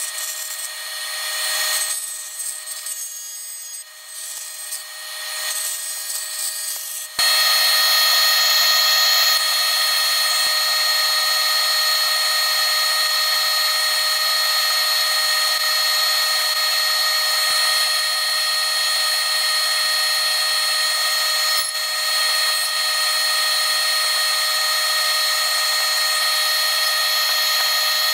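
Lathe running with a steady whine while a cutting tool scrapes into a spinning epoxy resin blank, making a hissing cutting noise. The cutting is uneven at first, then jumps louder about seven seconds in and holds steady.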